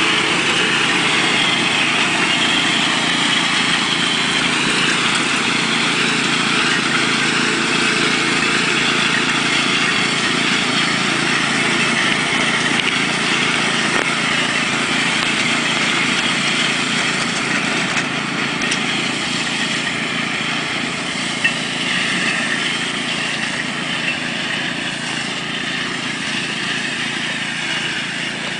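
Small engine of a 7¼-inch scale ride-on backyard train running steadily, fading slowly over the last third.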